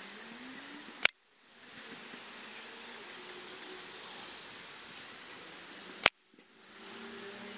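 Two sharp shots from an air rifle, about five seconds apart, as a five-shot group is fired at 50 yards.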